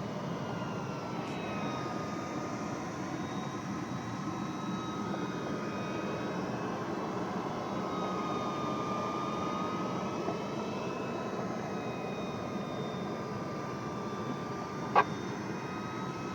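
Steady cockpit noise of a light aircraft in flight, with faint whistling tones that drift slowly in pitch. A single sharp click sounds near the end.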